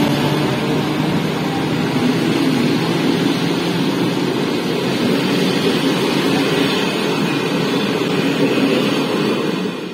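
Passenger coaches rolling past close by, drawn by a ČD class 754 diesel locomotive: a loud, steady rumble of wheels on rail. The locomotive's engine drone fades out in the first few seconds.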